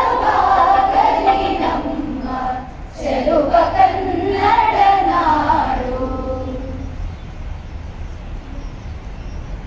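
A large group of women singing a Kannada song together in unison, with a short break between lines about three seconds in; the singing grows quieter after about seven seconds.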